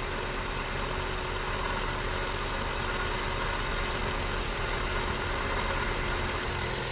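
1998 Volvo S70's inline five-cylinder engine running steadily, having just been revived from a flooded no-start.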